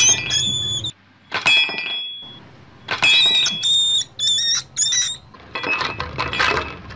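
A trapped rat squealing in repeated shrill, high-pitched bursts, with scuffling noise from its struggle under and after the squeals, busiest near the end.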